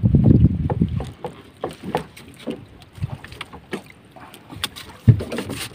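Scattered knocks and taps of gear being handled on a wooden outrigger boat, after a low rumble in the first second, with a heavier thump about five seconds in.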